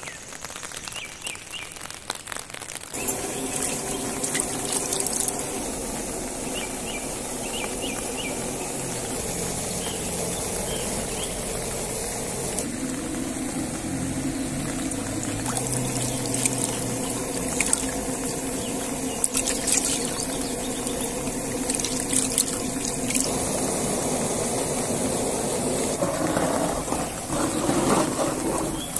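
Water pouring and trickling over a steady hum, the sound changing abruptly about three, thirteen and twenty-three seconds in.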